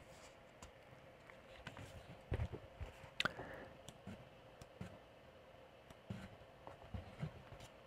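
Faint scattered clicks and a few soft knocks over a low steady hum.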